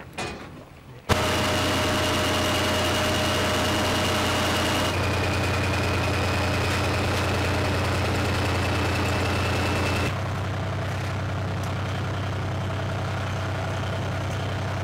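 Heavy diesel engine of a tank-chassis vehicle running steadily at idle, with a steady high whine over it; it starts abruptly about a second in and shifts level and pitch suddenly twice.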